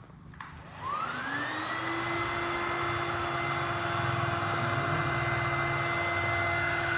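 Small electric pump motor switching on, its whine rising quickly in pitch as it spins up, then running steadily.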